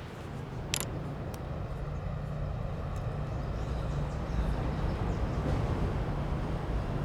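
Steady low rumble of a running vehicle, growing slightly louder, with one sharp click about a second in.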